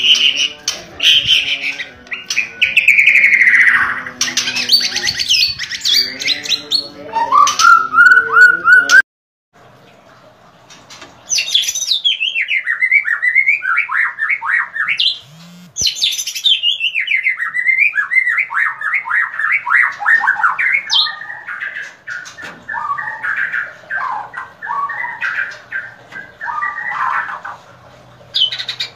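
White-rumped shama (murai batu) singing: varied whistled phrases, many sliding down in pitch, with a brief break about nine seconds in.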